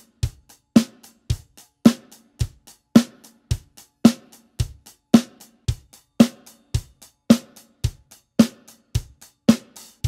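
Drum kit played with wooden drumsticks in a steady, plain rock beat. Bass drum and snare alternate, each about once a second, with lighter hi-hat strokes in between.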